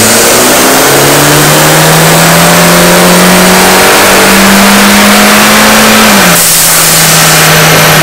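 Hyundai Veloster Turbo's 1.6-litre turbocharged four-cylinder making a loud pull on a chassis dyno, its pitch climbing steadily as revs rise. A little after six seconds in the revs drop and a rush of hiss comes through as the throttle closes.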